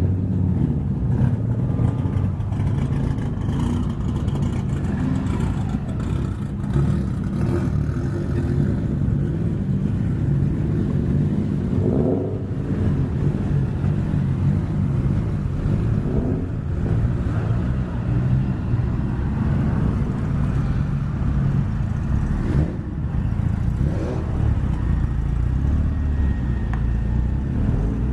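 Car engines running at low speed, a steady low rumble, with a few short rises in engine pitch as they rev.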